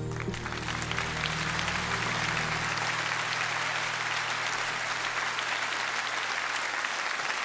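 Audience applauding at the end of a song, a dense clapping that holds steady throughout. Underneath, the band's last low chord lingers and stops near the end.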